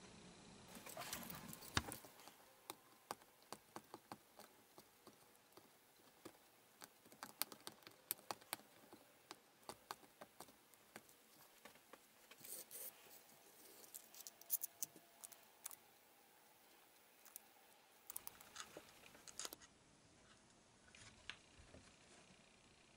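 Faint, irregular small clicks and scrapes of a small blade cutting shreds off a piece of plastic binding material on a wooden board, the shreds to be dissolved in acetone as a filler. The clicking stops a few seconds before the end.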